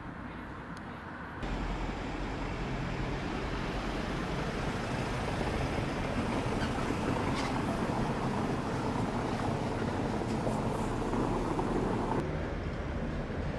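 A car driving over a cobblestone street, its tyre and engine noise growing louder as it comes closer, then dropping off suddenly near the end.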